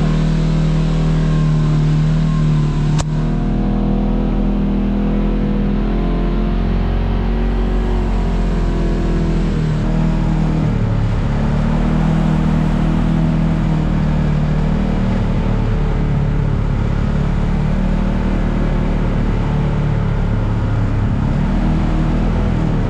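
Side-by-side UTV engine running steadily with the revs rising and falling as it drives over the trail. There is one sharp click about three seconds in.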